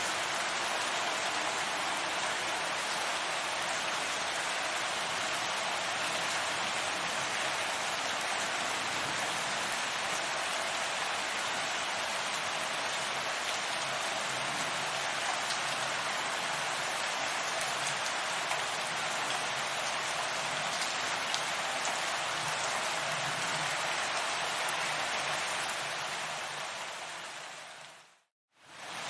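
Steady rain falling, an even hiss of drops. Near the end it fades out to brief silence and then comes straight back in.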